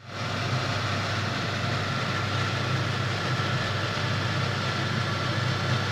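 Steady mechanical hum with an even rushing noise, fading in at the start and holding level throughout.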